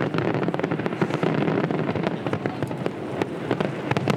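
Fireworks display: a dense, continuous run of bangs and crackles from many shells bursting in quick succession.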